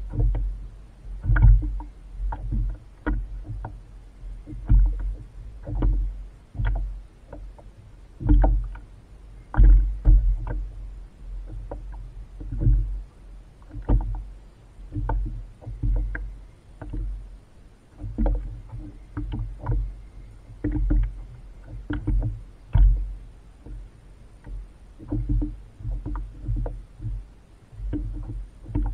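Water slapping against a kayak hull at sea, a string of irregular low thumps with small splashes, one or two a second.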